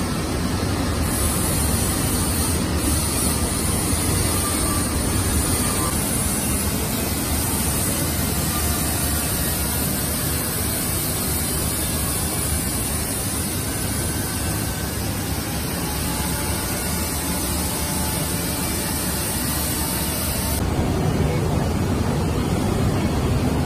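Single jersey circular knitting machine with a 30-inch, 12-gauge, 48-feeder cylinder running at about 22 rpm, a steady whirring clatter of needles, cams and yarn feeders. About 20 seconds in the sound gets a little louder and heavier in the low end.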